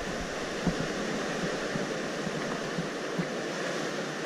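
Sea surf washing steadily, its rushing noise filling a sea cave, with a few faint clicks scattered through it.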